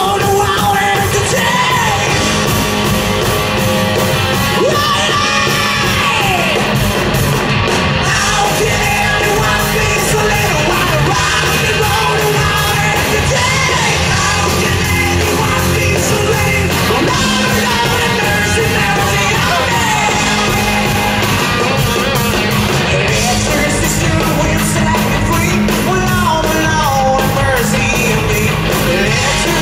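Hard rock band playing live and loud in a large hall: electric guitars, bass and drums, with yelled and sung vocals over them.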